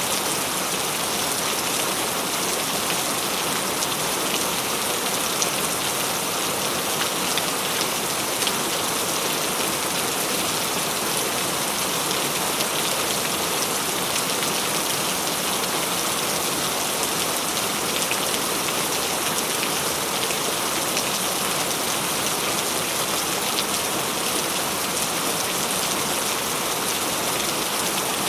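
Steady rain falling and pattering on a surface, an even dense hiss with scattered drop ticks.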